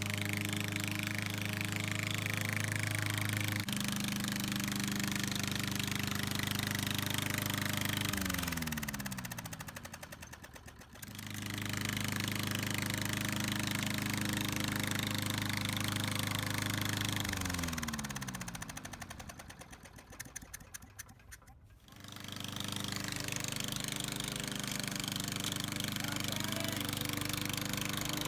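Lawn mower engine running steadily. Twice its pitch falls and it dies away over a few seconds, then it suddenly runs again.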